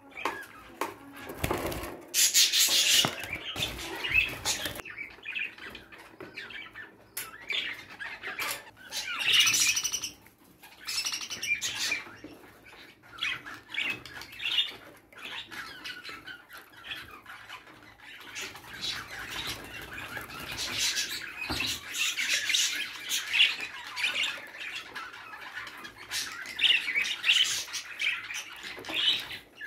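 A pair of budgerigars chirping and chattering throughout, with a few short bursts of wing flapping.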